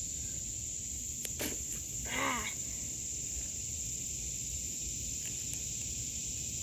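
Steady high-pitched drone of insects. A couple of sharp clicks sound about a second and a half in as a loose plastic toy train track joint is pressed together, and a brief voice-like sound follows just after two seconds.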